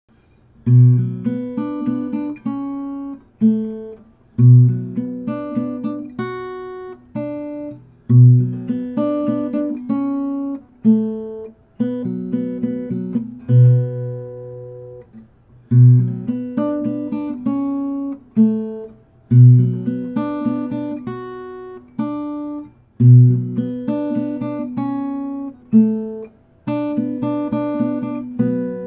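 Steel-string acoustic guitar playing a slow instrumental tune of single plucked notes, with a deep bass note coming round about every four seconds.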